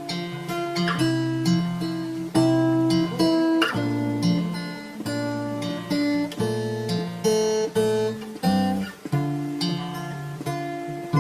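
Instrumental music: an acoustic guitar strumming chords in a repeating pattern, with no singing.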